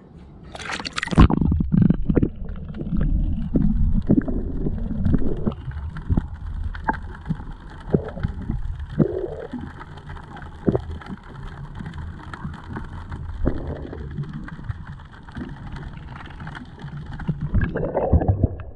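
An action camera plunged into calm seawater: a splash about a second in, then muffled underwater gurgling and sloshing, heavy in the low end, with scattered knocks against the camera.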